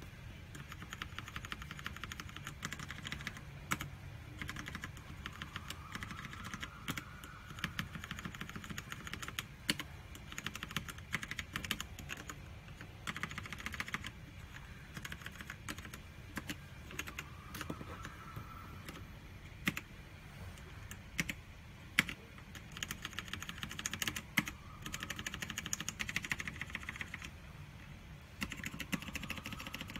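Mechanical keyboard being typed on in fast bursts of key clicks with brief pauses between them, with a few louder single keystrokes.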